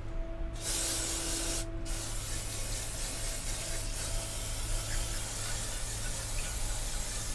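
Aerosol carburetor cleaner hissing out of its straw onto a pair of Honda GL1100 carburetors. It starts about half a second in, breaks off briefly, then sprays on steadily over a low steady hum.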